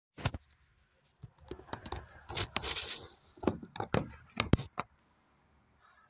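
Handling noise: a run of sharp clicks and knocks with scraping, the longest scrape about two and a half seconds in, dying away after about five seconds.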